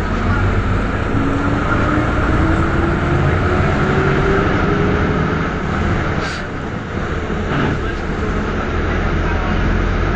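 Ikarus city bus heard from inside the cabin, driving along with a steady engine and road rumble. A whine rises in pitch over several seconds as the bus gathers speed. A sharp click comes about six seconds in, and the noise dips briefly just after.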